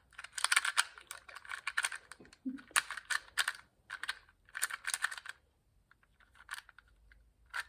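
Rubik's 2x2 speed cube being turned rapidly during a timed solve: fast runs of plastic clicking that stop a little past halfway.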